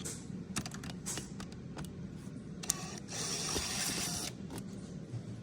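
Small clicks and taps of screws and a tool being worked on a Cadillac Escalade's dashboard screen mount, with a brief rasping whir about three seconds in.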